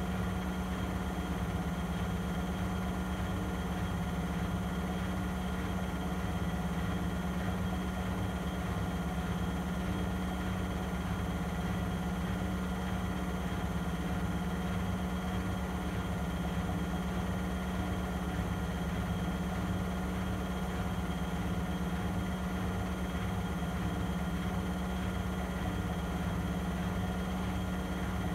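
Vestel CMI 9710 front-loading washing machine spinning at its full 800 rpm: a steady motor hum with a fast, even low throb from the turning drum.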